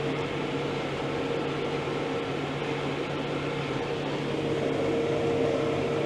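New Holland Workmaster tractor running steadily: an even mechanical hum with a constant whine over it.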